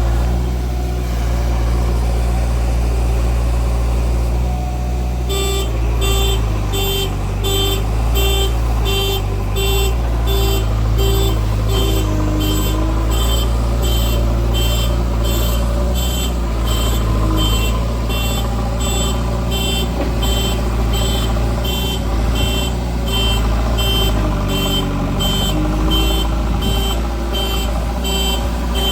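Backhoe loader's diesel engine running, with its reversing alarm starting to beep about five seconds in and keeping up an even beat of about two beeps a second.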